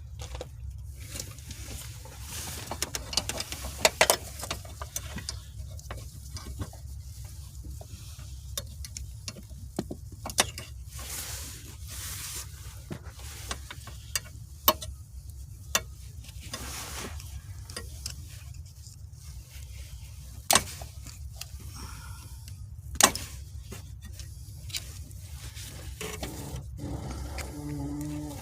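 Hand work on car parts: scattered sharp clicks and knocks of tools and metal pieces, with some short scraping, over a steady low hum.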